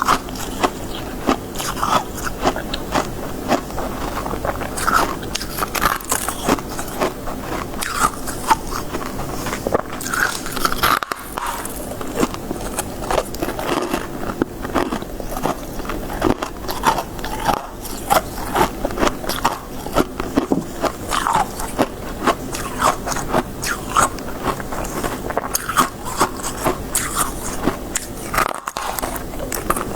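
Close-miked biting, crunching and chewing of crisp freezer frost, like shaved ice: a dense, continuous run of sharp crunches.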